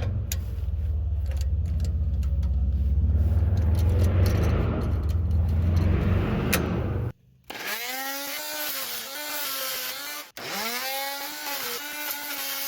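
A power tool with a carbide-toothed blade cutting through a rusted exhaust bolt at the muffler joint. For about seven seconds it is a heavy low buzz. After a sudden break, the motor runs again with its pitch rising and sagging as the blade loads up in the metal.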